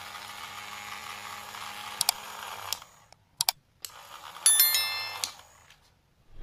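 Small DC motor and fan blades of a homemade dynamo rig whirring steadily for about two and a half seconds. Then come a few sharp clicks and a short bell chime from a subscribe-button sound effect, about four and a half seconds in.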